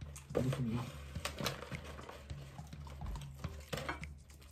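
Irregular clicks and taps of food being handled at the table: a hand rummaging in a cardboard fried-chicken bucket and tipping it. A low steady hum runs underneath.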